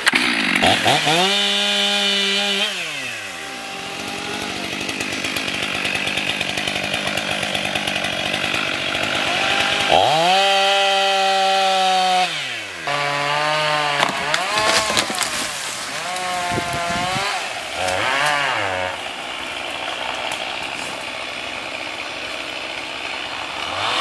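Two-stroke chainsaw cutting a dead ash limb: revved up to full speed and let back down twice, then running through a cut with its pitch rising and falling as the chain bites.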